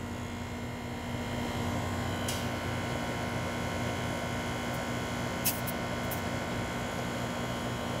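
R-454B refrigerant blowing through a charging hose to purge the air out of it: a steady buzzing hiss that steps up slightly about a second in, with a couple of light clicks midway.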